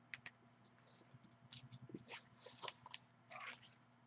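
Faint handling sounds: soft rustling of clothing and light scattered clicks, over a low steady hum.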